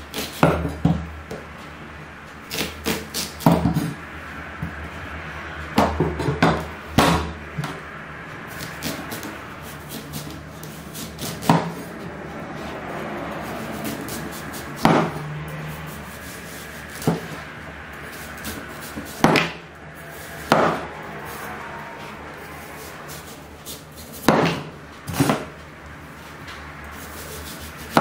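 A large knife slicing the rind off a whole watermelon on a wooden cutting board. Irregular sharp knocks come every second or few as the blade cuts down through the rind and strikes the board.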